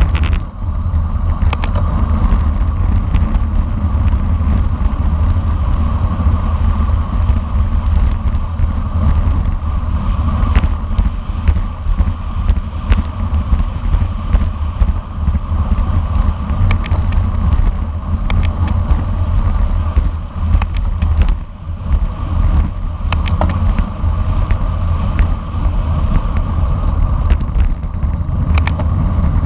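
Wind buffeting the microphone of a camera on a moving racing bicycle, a loud, steady low rumble mixed with tyre and road noise. Scattered clicks and knocks run through it.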